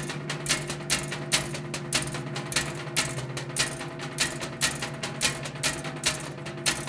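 Percussion music: rapid, uneven dry clicks, several a second, over a steady low hum.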